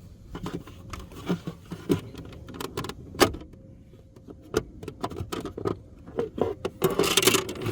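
Plastic cover in a 2023 Toyota Tacoma cabin being slid up and pulled off for access to the cabin air filter: a run of light clicks and knocks, one sharp knock about three seconds in, and a louder scraping rattle near the end.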